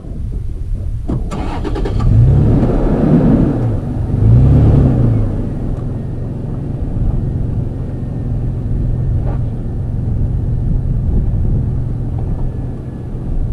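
Toyota FJ Cruiser's 4.0-litre V6 engine pulling the truck slowly up a rocky dirt trail, revving up and easing off twice in the first few seconds, then running steadily.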